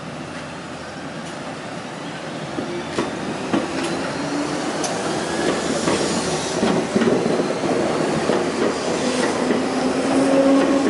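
Nankai 'Rinkan' limited express train pulling out of the station and passing along the platform. It grows steadily louder as it gathers speed, with its wheels clacking over the rail joints.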